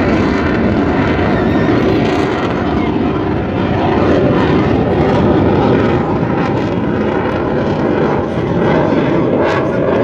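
MiG-21 fighter's turbojet engine passing overhead: a loud, steady rush of jet noise with a faint whine running through it.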